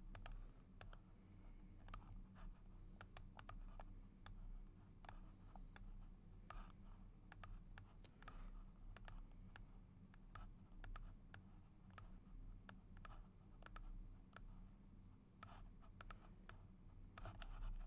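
Faint, irregular clicks of a computer mouse and keyboard used at a desk, over a steady low hum.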